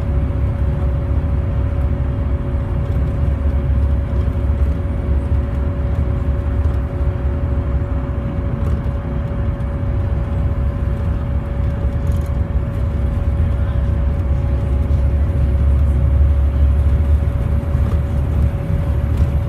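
Volvo B7TL double-decker bus running, with a heavy low rumble that swells in the second half and a steady whining tone held at one pitch over it. The whine is an odd noise the uploader has never heard on this bus type and cannot identify.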